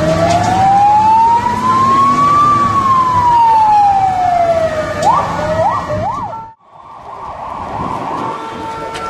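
Emergency-vehicle electronic siren sounding one slow wail, rising for about two and a half seconds and falling again, then switching to a few quick yelps. The sound cuts out abruptly about six and a half seconds in, leaving a steady rushing noise with faint siren tones.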